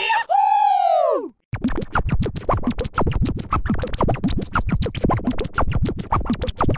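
Cartoon sound effects: a pitched tone that bends up and then slides down over about a second, then after a short break a fast, stuttering run of clicks and chirps like DJ record scratching.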